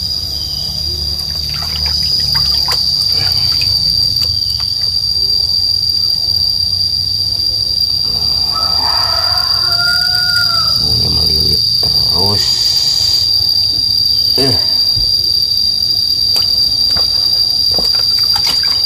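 A steady high-pitched insect drone, with scattered light splashes and knocks as a python is handled and washed in a plastic basin of water.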